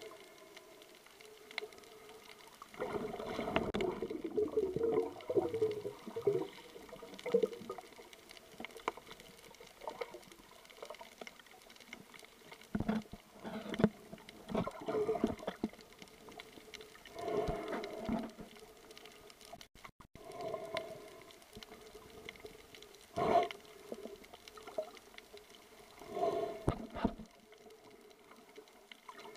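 Muffled underwater audio: bursts of water sloshing and bubbling every few seconds over a faint steady hum.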